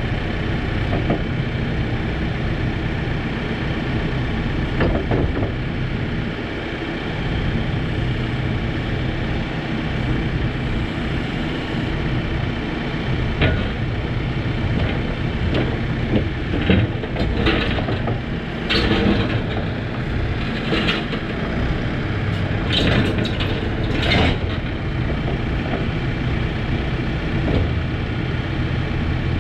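Case 590 Super N loader backhoe's diesel engine running steadily, with a series of sharp metal clanks and knocks around the middle as the machine is worked.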